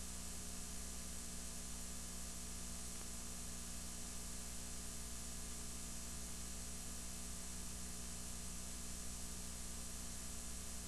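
Steady electrical hiss with a low mains hum underneath, unchanging throughout: line noise from a videotape playback with no recorded sound.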